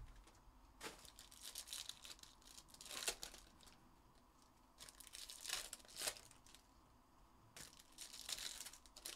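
Foil trading-card packs of 2021-22 Panini NBA Select being torn open and crinkled by hand, in several short, quiet rips spread across the few seconds.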